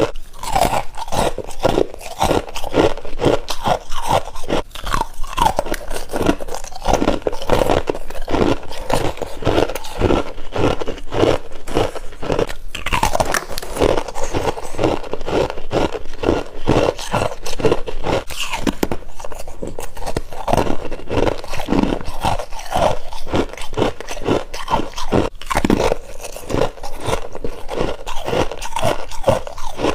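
A person biting and chewing freezer frost close to the microphone, with dense, irregular crunching that goes on without pause.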